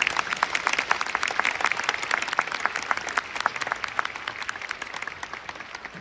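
Audience applauding: a dense patter of many hands clapping that thins out toward the end.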